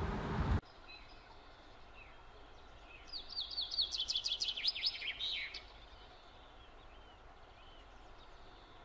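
A songbird singing: a quick run of sharp, falling chirps, several a second, starting about three seconds in and lasting a couple of seconds. Fainter scattered chirps come before and after it, over a faint hiss. Outdoor noise cuts off abruptly just after the start.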